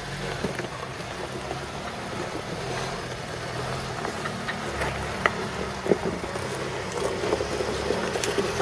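Suzuki Samurai engine running at low revs as the 4x4 crawls slowly over rocks, with a couple of sharp knocks about five and six seconds in.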